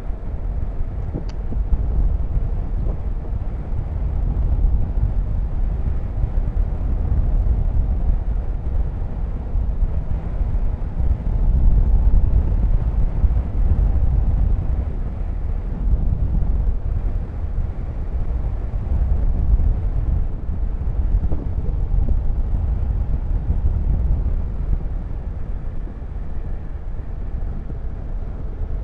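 Motorcycle being ridden on the road: the engine runs steadily under a continuous low rushing of wind and road noise.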